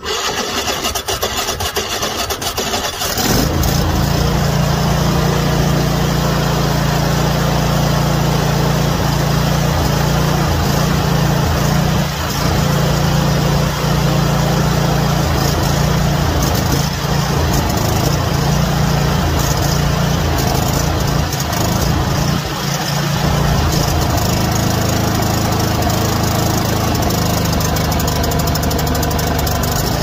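Kohler 24 hp riding-mower engine cranked by its electric starter for about three seconds, then catching and running steadily. It dips briefly twice while fogging oil is sprayed into the open air intake to winterize it.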